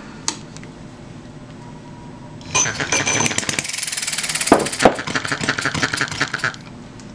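1/8-scale Galloway hit-and-miss model gas engine being spun up with a handheld starter. A rapid clattering of clicks and a thin whine run for about four seconds, with two sharp knocks midway, then cut off suddenly.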